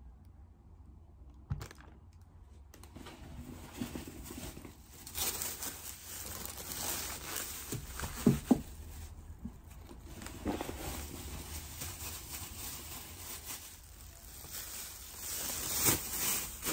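Thin plastic produce bags crinkling and rustling as vegetables in them are handled and lifted out, with a few sharp knocks, the loudest about eight seconds in.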